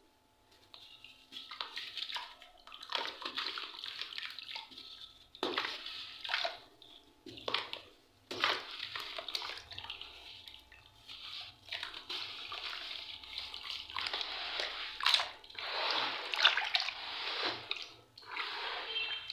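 Hands crumbling wet charcoal into a basin of water and swishing it about: irregular splashing and sloshing in uneven surges, with the odd sharp click as pieces drop in. Busiest and loudest in the later half.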